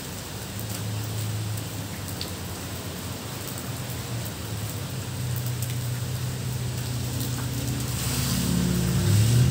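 Steady rain falling on foliage and a wet road. Near the end a vehicle approaches on the wet road and grows louder.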